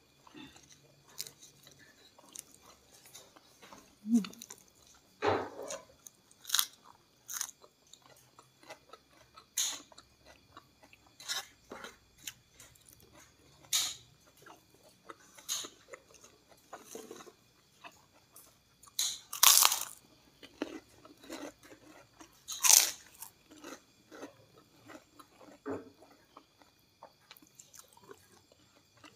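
Close-miked chewing and crunching of a rice-and-fish meal eaten by hand with raw lettuce: irregular crisp crunches, bites and wet mouth clicks. The two loudest crunches come about three seconds apart, a little past the middle.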